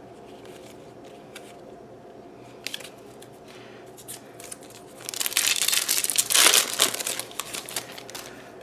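A foil Yu-Gi-Oh! booster pack wrapper crinkling loudly as it is torn open, starting about five seconds in and lasting about three seconds.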